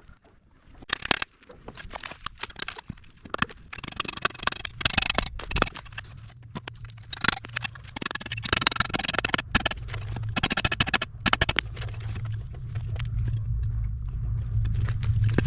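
Metal tools and motorcycle parts clinking and knocking during hands-on work on the rear swingarm, with bursts of rapid clattering. A low steady hum builds up over the last few seconds.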